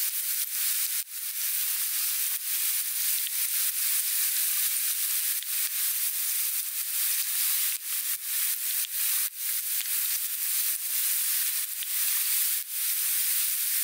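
Sliced onions sizzling in hot oil in a frying pan: a steady hiss with brief dips in level.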